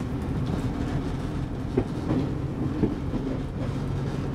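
Class 122 'Bubble Car' diesel railcar running under power, heard from the driver's cab: a steady diesel engine drone with a few sharp clicks of the wheels over rail joints and pointwork.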